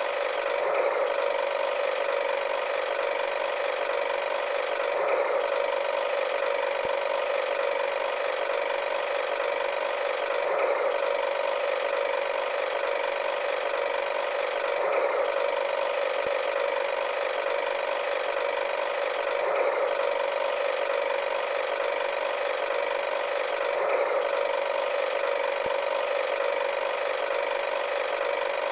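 A steady mechanical whirring and clicking, like a small gear mechanism, that swells in a regular cycle about every four and a half seconds.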